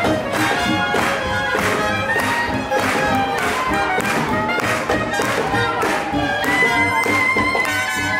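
Live swing band playing an up-tempo number, saxophones and trumpet over a drum kit keeping a steady beat of about two strokes a second. About six and a half seconds in, a horn holds a long high note.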